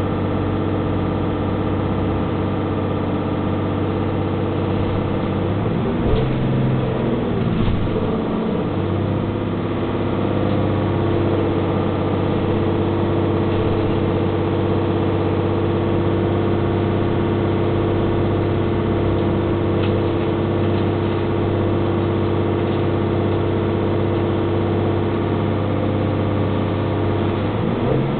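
Hess Swisstrolley 4 trolleybus's auxiliary diesel engine running steadily, heard inside the passenger cabin, with a few knocks about six to eight seconds in. The engine note changes near the end.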